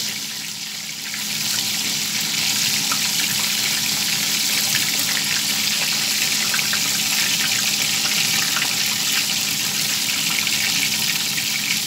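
Breaded beef escalopes deep-frying in hot oil in a small saucepan: a steady sizzle with fine crackling, a little softer for the first second, then even.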